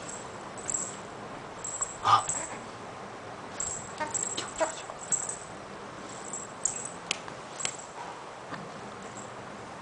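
A baby making a few short coos and squeaks, the loudest about two seconds in and a cluster around four to five seconds, with two sharp clicks later on.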